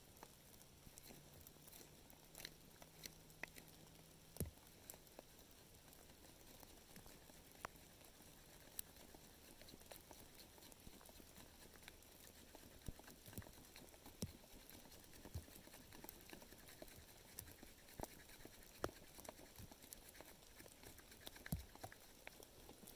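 Near silence with faint, irregular ticks and taps.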